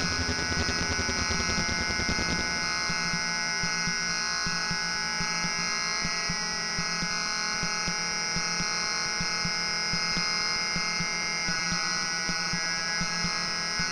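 Home-built 40106 square-wave synthesizers playing a buzzing electronic drone: several steady, alarm-like tones layered over a fast low pulsing. About two and a half seconds in, the heaviest low pulse drops away and the thinner pulsing carries on.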